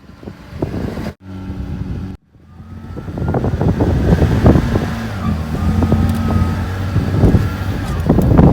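Toyota Land Cruiser 80 series driving on sand, its engine running with a steady hum that grows louder a couple of seconds in and then holds, with some wind noise. The sound cuts off abruptly twice in the first couple of seconds.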